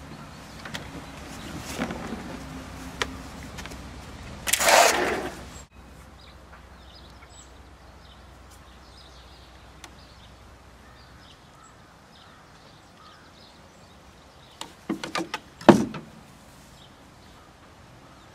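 Quiet outdoor background, with a loud rustling noise lasting about a second some four and a half seconds in, and a quick cluster of knocks and clicks near the end, the loudest a single sharp knock.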